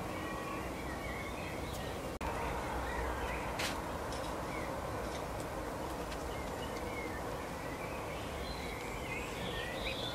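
Small birds chirping and twittering in short, scattered calls over a steady outdoor background hiss and low rumble, with a faint steady hum. The sound cuts out for an instant about two seconds in.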